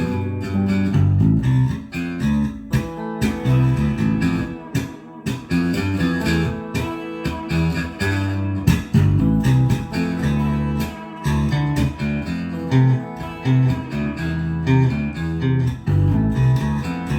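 A plucked electric string instrument played on its own: a busy, continuous run of single low notes.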